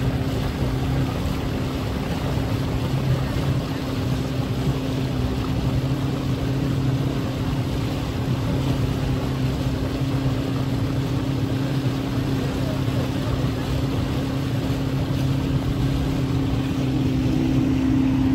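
Motorboat engine running steadily while the boat is underway: a continuous even hum over a rushing noise, getting slightly louder near the end.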